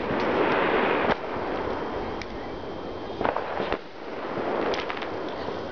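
New Year fireworks and firecrackers going off: a loud crackling hiss for about the first second that cuts off suddenly, then scattered sharp cracks a couple of seconds later and again near the end.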